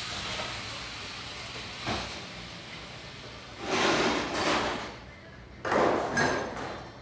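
A fading hiss, then two bouts of metal sliding and scraping with knocks, as a cut-open shock absorber is taken apart by hand.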